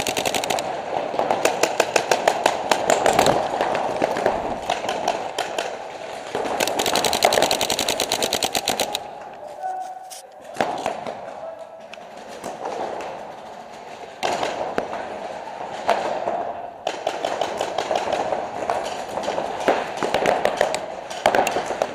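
Paintball markers firing in rapid streams, many shots a second, in bursts, with a lull about ten seconds in.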